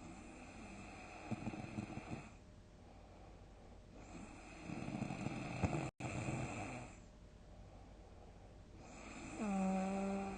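A sleeper snoring heavily: three breaths about four seconds apart. The first two are rough and rattling, and the last turns into a steady, low, hum-like tone near the end.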